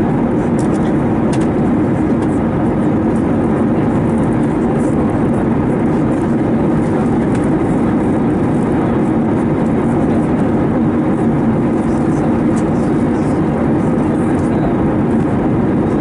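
Steady, loud cabin noise inside an Airbus A321neo before takeoff, an even rumble and hum from the aircraft's air and engine systems with no breaks.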